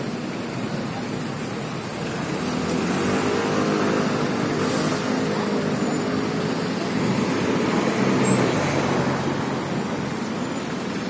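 Street traffic: a small shuttle minibus's engine running as it drives close by, swelling from about two seconds in and easing off near the end, with a van passing after it.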